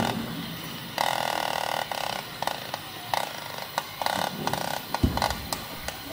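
Gas cutting torch hissing and crackling as it cuts at a truck drum brake's steel backing plate, in irregular bursts of about a second or shorter. There is a dull thump about five seconds in.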